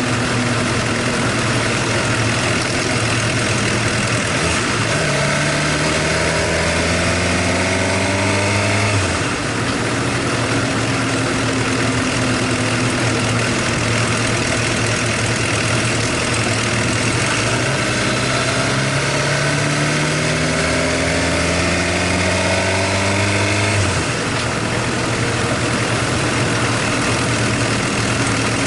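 Suzuki GSX-R750's inline-four engine running, its pitch slowly climbing and falling back twice, with a steady mechanical clatter over it. It is the loud tappet noise the owner hears until the engine is fully warm, which he puts down to wear after 53,000 km and circuit riding and fears may mean an engine overhaul.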